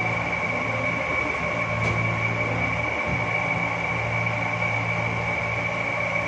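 Steady machine hum with a constant high whine, as from a running electric motor.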